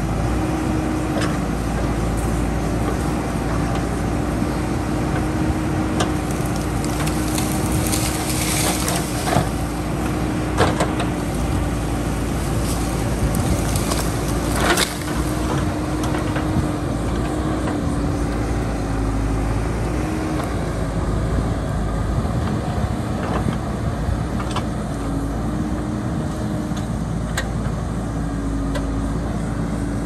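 JCB backhoe loader's diesel engine running steadily, its pitch wavering slightly, with a few sharp knocks and clatters; the loudest knock comes about fifteen seconds in.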